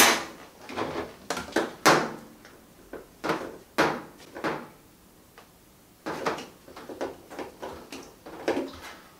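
Corrugated plastic drain hoses being handled, making a series of sharp knocks and clatters with a quiet gap of about a second and a half halfway through.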